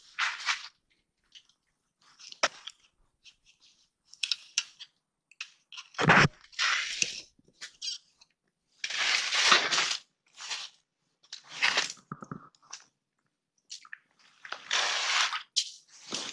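Irregular bursts of rustling, scraping and crunching as an angler handles line and gear while bringing a hooked fish up through the ice, with a sharp thump about six seconds in and a longer scraping rustle a few seconds later.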